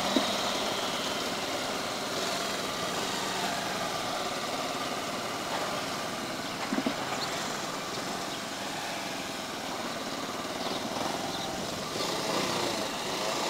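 Motorcycle engine running at low road speed, with wind rushing over the microphone, and a brief knock about seven seconds in.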